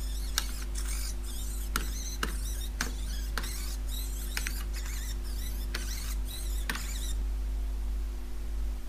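Self-solving robotic Rubik's cube turning its faces: a run of short motor whirs and clicks, about two a second, that stops about seven seconds in.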